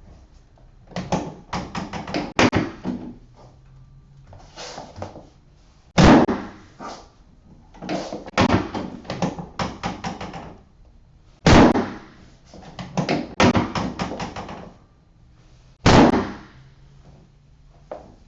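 Chiropractic drop table: bursts of clicking and knocking as the drop section is worked, and three loud thuds about 6, 11 and 16 seconds in as the section drops under the thrust of a pelvic drop adjustment.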